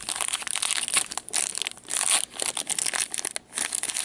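Foil wrapper of a 2016-17 Upper Deck MVP hockey card pack crinkling as it is handled and torn open, in quick irregular crackles with brief pauses.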